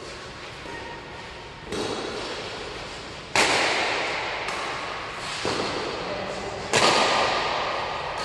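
Badminton rackets striking a shuttlecock in a doubles rally: about five sharp hits a second or so apart, each ringing out in the hall's echo. The second and last hits are the loudest.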